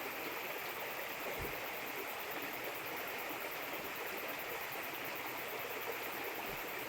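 Steady rushing of running water, an even wash of sound with no breaks.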